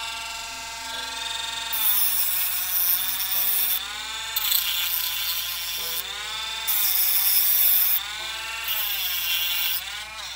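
Small handheld rotary tool with a cut-off wheel running at high speed and cutting thin aluminium tubing. Its whine drops in pitch four times as the wheel bites into the tube, each time with a harsh grinding.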